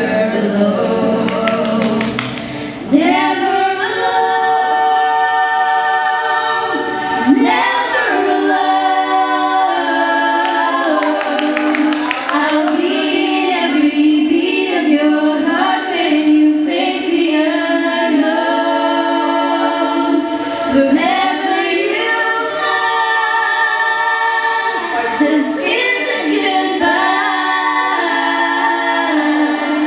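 Four women singing together in harmony into microphones, with no instruments playing, in long held notes that change chord every second or two.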